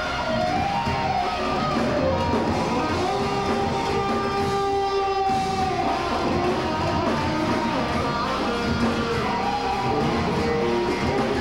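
Heavy metal band playing live: an electric guitar lead with long held and bending notes over bass guitar and drums.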